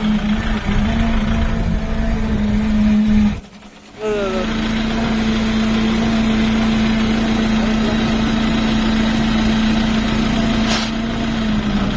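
Kubota tractor's diesel engine running steadily with a strong constant hum, the noise being checked as a fault. The sound cuts out for about half a second roughly three and a half seconds in, then carries on unchanged.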